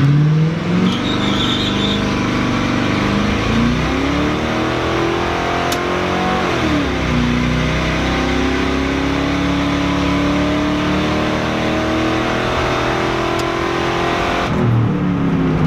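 Ford Crown Victoria's 4.6-litre V8 at full throttle, heard from inside the cabin, its pitch climbing as the car accelerates from a stop. About six and a half seconds in, the automatic transmission upshifts and the pitch drops sharply, then climbs again more slowly until the engine eases off near the end.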